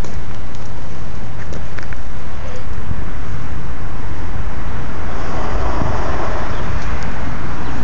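Road traffic noise: a loud, steady rumble, with a vehicle sound swelling from about five seconds in.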